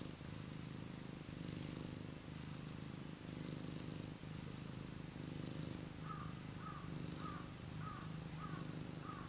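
Domestic cat purring steadily, a low rumble that breaks briefly about once a second as it switches between breathing in and out.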